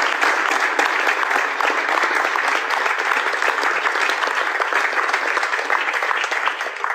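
Audience applause: many hands clapping steadily, dying down near the end.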